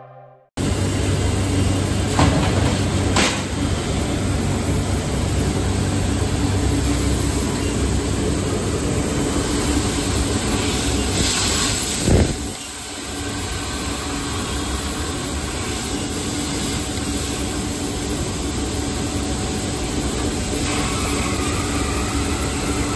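Laser tube cutting machine running with a steady low hum and hiss, with a sharp clunk about halfway through. Near the end the head is cutting into a steel tube.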